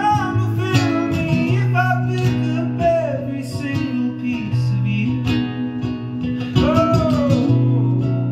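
Acoustic guitar strummed steadily, with a man's voice singing long, gliding notes over it at times.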